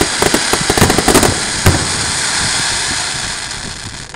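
Aerial fireworks: a rapid string of sharp pops and bangs for the first second or so, one more loud bang shortly after, then a dense crackling hiss that fades away near the end.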